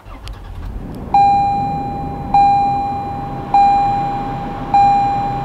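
Four evenly spaced dashboard warning chimes from a 2021 Toyota 4Runner, one about every 1.2 seconds starting about a second in, each a single bright tone that fades away. Beneath them the just-started 4.0-litre V6 idles low.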